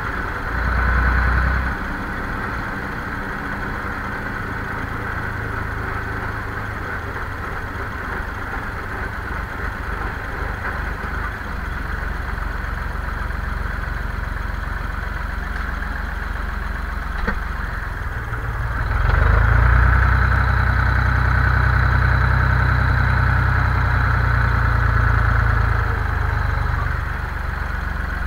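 Zetor 5245 tractor's four-cylinder diesel engine running while driving, heard from inside the cab. It swells briefly about a second in, then runs louder for several seconds from about two-thirds of the way through before easing back.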